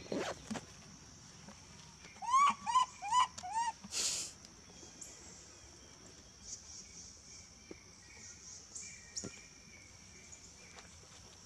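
Four short squeaky animal calls in quick succession about two seconds in, each rising then falling in pitch, followed by a brief harsh hissing burst, over a steady high-pitched background hiss.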